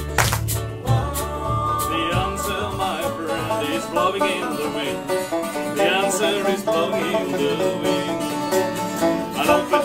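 Banjo and acoustic guitar playing an up-tempo folk tune, with a harmonica carrying the melody. A double bass and ukulele are heard in the first second, and the bass drops out about a second in.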